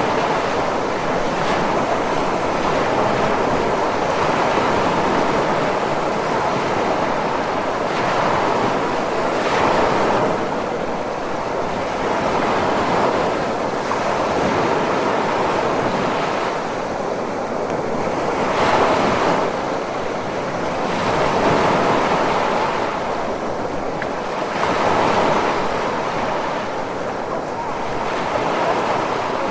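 Ocean surf: a continuous wash of waves breaking and rushing, swelling and easing every few seconds.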